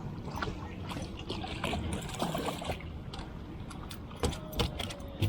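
Wind and water noise aboard a small fishing boat, with a few sharp knocks and rattles of gear about four seconds in.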